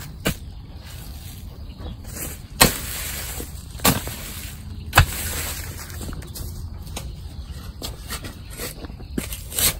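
Hoe blade chopping into soil about six times at uneven intervals, each strike a sharp thud, two of them followed by a second or so of loose earth scattering.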